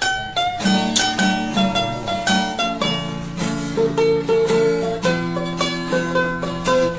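Background music played on plucked strings, a quick run of picked notes over a steady lower accompaniment.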